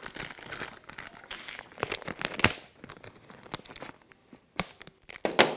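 Scissors cutting open a plastic disposable urinal bag, with the bag crinkling and tearing as it is handled and pulled apart; a scatter of short sharp clicks and snips runs through the crinkling.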